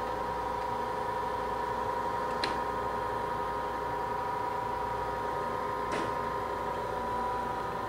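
Brown & Sharpe No. 3 universal cylindrical grinder running with a steady hum, and two light clicks from its hand controls being worked, about two and a half seconds in and again near six seconds.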